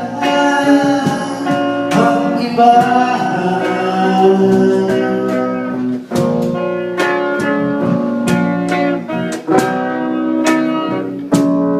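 Live band playing the closing bars of a slow Tagalog love song: guitar chords with a singer holding a long note, and a regular beat.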